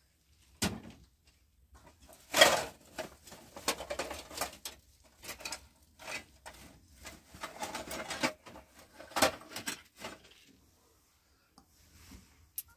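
Household items being handled and moved about: irregular rustling, clinks and knocks, loudest about two and a half seconds in and again just after nine seconds.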